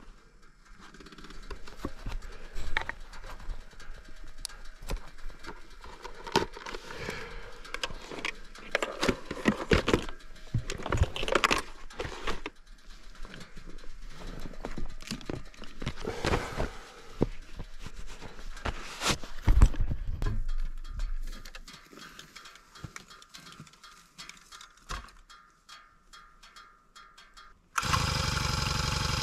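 Irregular knocks and clatter, quieter for a few seconds before the end, then an engine comes in abruptly near the end and runs steadily.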